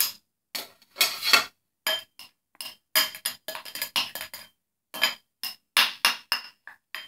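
Metal spoon clinking and scraping against a bowl in quick, irregular strikes, each with a short ring, as cotton balls are scooped out blindly.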